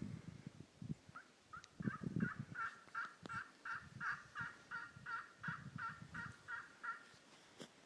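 Turkey yelping: a long, evenly spaced run of about three yelps a second, starting about a second in and stopping near the end, over low thumps and rustling.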